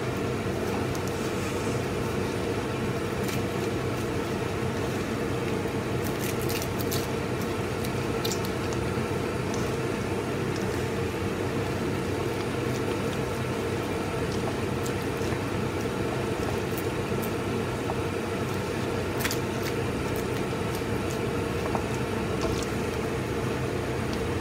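A spatula stirring and scraping through vegetables and chicken giblets in a wok of simmering curry, with a few sharp clicks against the pan, over a steady rushing noise.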